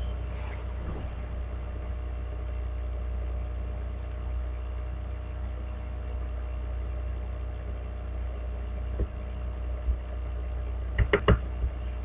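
Steady low hum of the recording setup's background noise, with a few quick clicks close together near the end.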